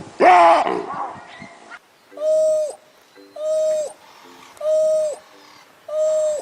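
A short dog whine or yelp, the loudest sound, bending in pitch, then an owl hooting: four even, steady hoots about a second and a quarter apart, each dropping off at the end.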